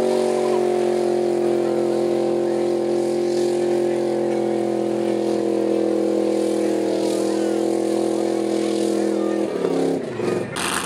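Mud-run truck's engine held at high, steady revs, then dropping off quickly about a second before the end.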